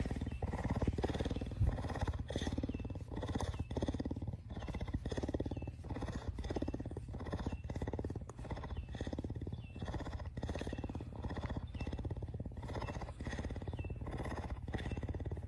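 Cougar purring in a steady low rumble that swells and dips in a regular rhythm while its chin is scratched.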